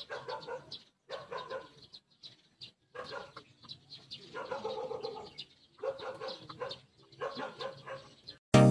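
Animal calls in a run of short pitched bursts with brief silences between them; loud electronic music cuts in abruptly right at the end.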